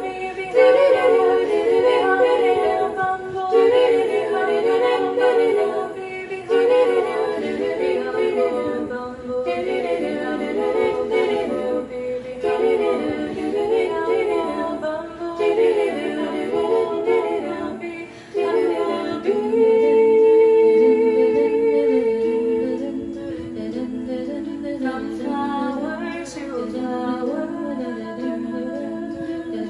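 Women's voices singing a cappella in four multitracked parts, moving in fast, busy runs that give way to longer held notes about 19 seconds in.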